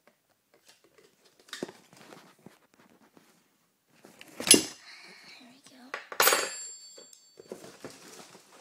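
Metal stunt-scooter parts being handled and knocked together: scattered light knocks, a sharp clank about four and a half seconds in, and a second clank over a second later that rings briefly with a metallic tone.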